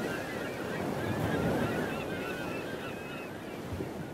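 Waves washing on a shore with birds calling over them in short wavering calls, slowly fading out.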